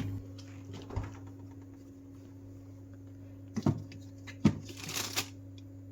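A few light knocks and a short rustle over a steady low hum, like objects being handled in a small room.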